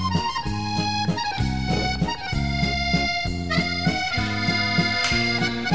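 Background music led by an accordion, with a bouncing bass-and-chord beat about twice a second under a held melody.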